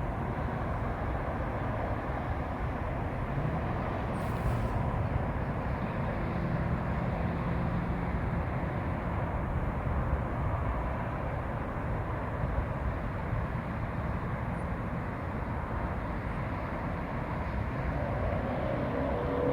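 Steady low rumbling outdoor noise, with a faint hum coming and going.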